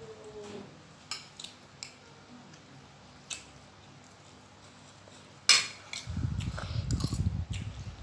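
Metal fork and spoon clinking and scraping against ceramic plates of noodles, a few light clicks and one sharp clink about five and a half seconds in. Close-up eating noises of chewing follow for about two seconds.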